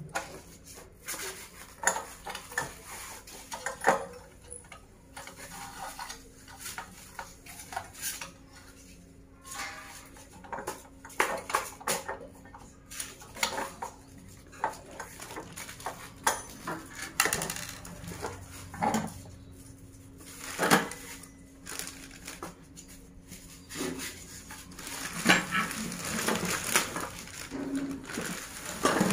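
Scattered clinks, clicks and knocks of a new two-burner glass-top gas stove being handled: its knobs turned and its brass burner caps and steel pan supports lifted and set down. Plastic packaging rustles near the end.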